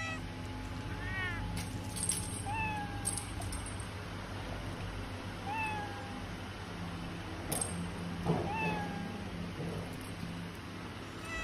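Young cat mewing: about four short, high-pitched mews, a couple of seconds apart, over a low steady hum.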